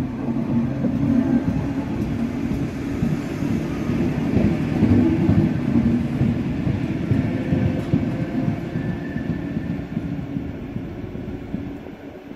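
SNCB electric multiple unit 660 passing close at low speed, its wheels rumbling and clattering over the rails. The sound fades as the train pulls away near the end.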